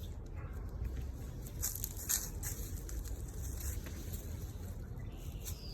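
Low rumble of wind and handling on the microphone, with a few soft crackling clicks and a brief falling whistle near the end.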